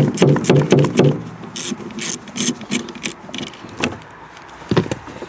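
Wrench working the nut on a car battery's negative terminal clamp to disconnect the battery: a run of short ratcheting clicks and scraping strokes, with a knock near the end.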